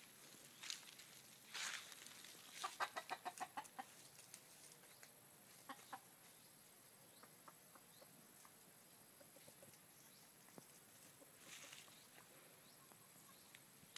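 Rooster clucking: a quick run of about ten short notes a few seconds in, with a few brief rustles around it.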